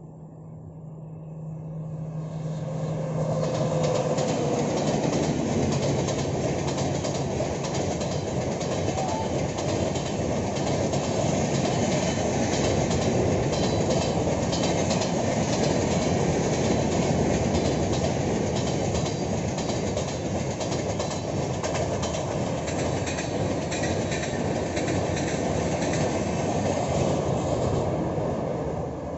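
Passenger express hauled by a WAP-7 electric locomotive passing at speed. A low steady tone at first, then the sound swells over the first few seconds into a loud, steady rush of wheels and coaches with rapid clickety-clack over rail joints. It dies away abruptly near the end.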